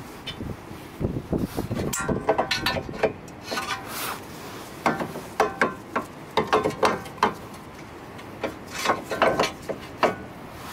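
Metal brake parts and hand tools being handled: bursts of sharp metallic clicks and clinks, each with a short ring, coming in three clusters with pauses between.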